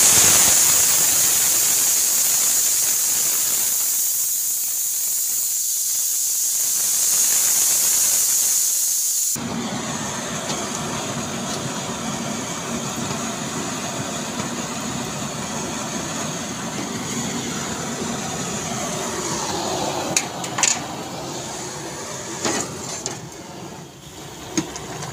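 Aluminium pressure cooker venting steam through its open vent pipe with the weight lifted off, releasing pressure after cooking: a loud, steady hiss that stops abruptly about nine seconds in, followed by a softer hiss. A few sharp metallic clicks come near the end as the lid is worked open.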